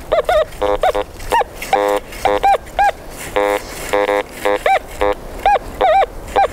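Teknetics T2+ metal detector's audio signals as the coil sweeps over closely spaced non-ferrous targets: a quick run of short beeps, about three a second. Some rise and fall in pitch, and others are flat, buzzy tones. The detector is sounding the neighbouring targets as separate signals.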